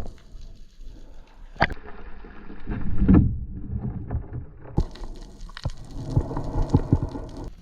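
Sea water sloshing and splashing around a spearfishing diver at the surface, in irregular surges with a few sharp knocks. About halfway through the sound briefly goes muffled.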